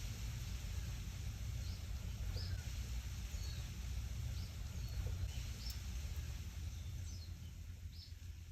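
Wind blowing through leaves, with a steady low wind rumble, while a small bird gives short high chirps about once a second.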